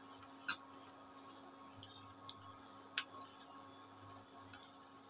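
Faint squishing and a few light clicks of a hand rubbing salt and turmeric powder into raw shell-on prawns on a plate. The sharpest click comes about three seconds in.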